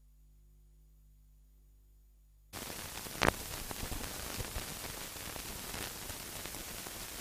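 Near silence with a faint hum, then about two and a half seconds in a steady hiss of static from a worn analogue soundtrack cuts in suddenly, with one sharp pop a moment later and a few fainter clicks.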